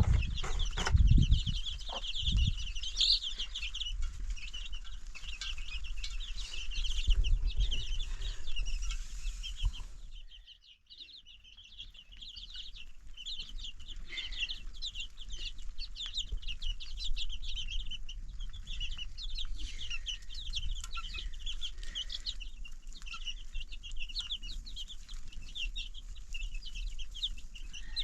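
Chickens calling: a continuous chatter of many short, high cheeps and clucks. It drops away briefly about ten seconds in, then resumes. There are a few low thumps in the first seconds.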